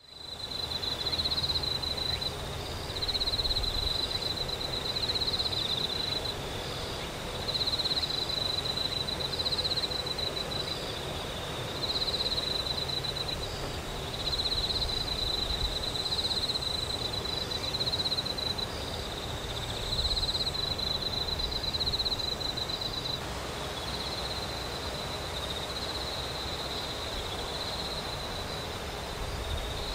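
Cicadas singing: a high, shrill buzz that pulses and swells in repeated phrases about every two seconds, over a faint low rumble.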